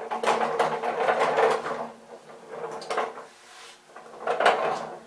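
Wood chips being cleared off a freshly drilled wooden dolly, in several short scraping, rushing bursts over a faint steady hum.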